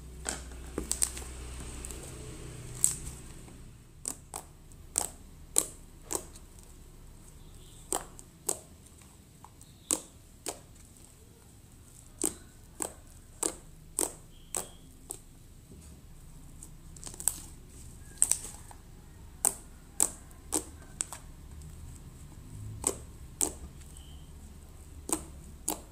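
Thick shampoo slime being stretched and squeezed by hand, giving sharp little clicks and pops as air pockets in it burst. They come irregularly, often less than a second apart, about thirty in all.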